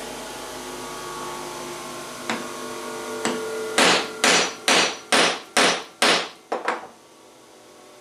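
Hammer striking a homemade pipe-nipple hole punch held on sheet gasket material on a wooden board, testing whether its ground edge cuts. Two light taps come first, then six hard blows at about two a second, then a couple of lighter taps. A steady machine hum in the background stops about halfway through.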